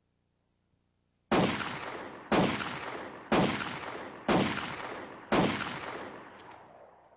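Five revolver shots, evenly spaced about a second apart and starting about a second in, each followed by a long echo that fades away.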